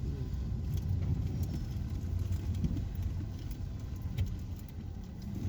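A car driving along a road, with the steady low rumble of its engine and tyres.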